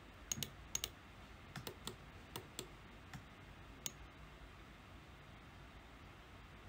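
Computer keyboard keys and mouse clicks, about ten sharp, irregular taps over the first four seconds, as a node name is typed into a search box and a value entered.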